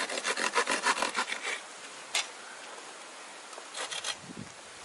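Hand saw cutting a piece of wood on a stump: a quick run of short, rasping strokes for the first second and a half, a single stroke about two seconds in, and a few more strokes near the end.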